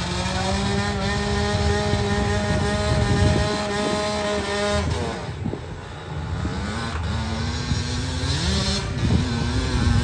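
Dirt bike engine held at steady high revs for about five seconds, then breaking off and revving up and down repeatedly as the bike launches and climbs the hill under load.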